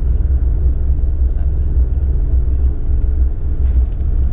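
Steady low rumble of a car ferry under way, its diesel engines droning without a break.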